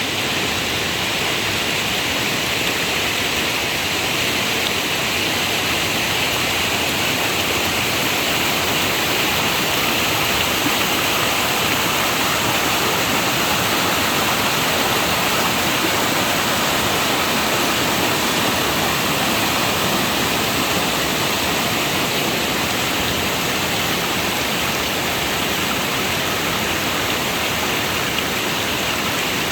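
Steady rain falling in a forest, an even hiss with no breaks.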